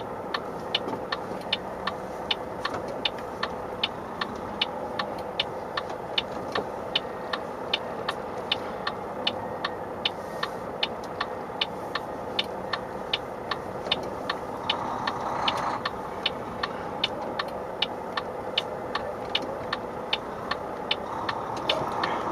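Truck diesel engine running steadily, heard from inside the cab, with the turn indicator ticking evenly about twice a second.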